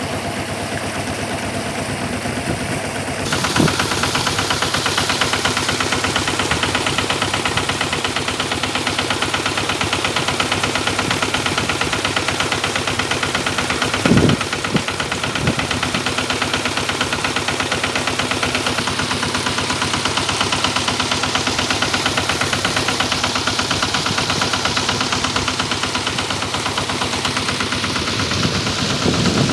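Kubota engine driving an irrigation water pump, running steadily with a rapid, even chugging. It gets louder about three seconds in, and there is a brief thump near the middle.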